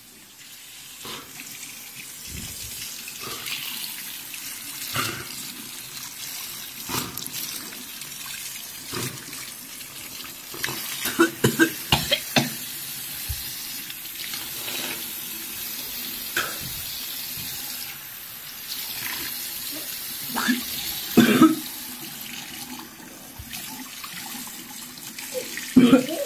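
Tap running into a bathroom sink while a person rinses out his mouth, with repeated short coughs and spits over the running water.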